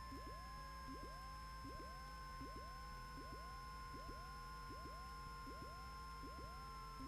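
Faint electrical whine and hum in the Cessna 150's cockpit audio: steady high tones, a tone that falls slowly in pitch, and short rising chirps repeating evenly, about one and a half a second.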